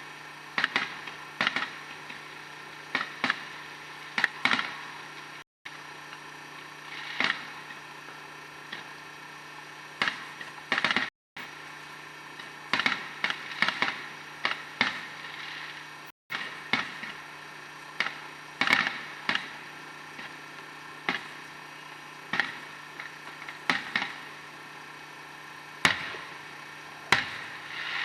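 Fireworks going off: a string of sharp bangs at irregular intervals, some in quick pairs or clusters, over a steady low hum.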